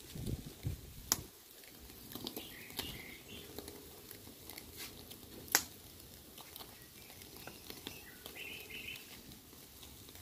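Charcoal fire in a mangal grill burning with scattered sharp crackles and one loud pop about five and a half seconds in, while birds chirp now and then. A few low thumps in the first second.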